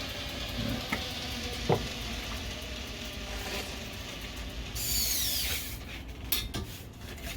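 Belt grinder running with a steel railroad spike held against a 220-grit Trizact belt, a steady abrasive hiss. About five seconds in comes a brief brighter hiss and a whine falling in pitch as the machine winds down, followed by a few sharp clicks.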